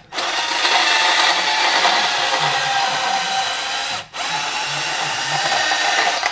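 Portable band saw running as it cuts through a metal radiator coolant pipe, the blade grinding on the metal. The saw stops for a moment about four seconds in, then runs again.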